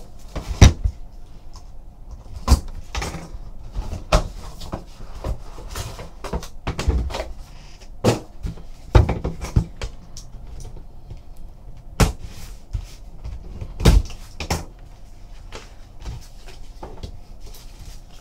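A trading-card box and its packaging being opened and handled: irregular knocks and clicks with rustling in between, the sharpest near the start and about fourteen seconds in.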